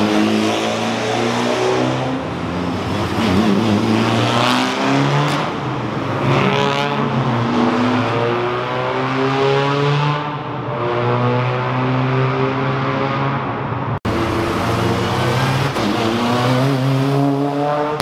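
Rally cars, a Mitsubishi Lancer Evolution among them, accelerate past one after another, their engine pitch climbing and dropping again and again. In the second half the engines echo in a road tunnel. There is an abrupt cut about two-thirds of the way through.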